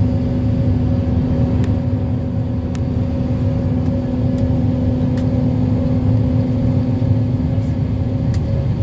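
Jet airliner in flight heard from inside the cabin: a steady low rumble of engines and airflow with a steady hum, the lower part of the hum dropping out near the end. A few faint clicks sit on top.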